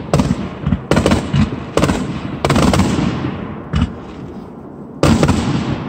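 Aerial fireworks shells bursting: a run of sharp bangs roughly a second apart, each trailing off into a fading rumble, with one more loud bang near the end.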